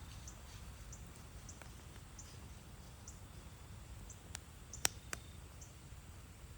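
Wood campfire burning with a low steady rumble and faint scattered crackles, then three sharp pops of burning wood close together about four to five seconds in, the middle one the loudest.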